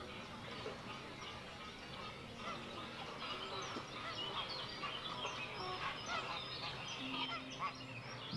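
Many geese honking over one another in a busy chorus of short overlapping calls, which grows denser from about two and a half seconds in.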